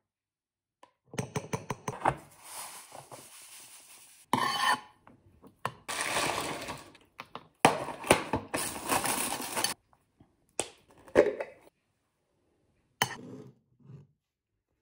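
Breakfast being made by hand: a spoon scraping and tapping in a ceramic bowl as fromage blanc is spooned in, then the rustle of a cereal box and its inner bag being opened and flakes tipped into the bowl, with a few knocks near the end.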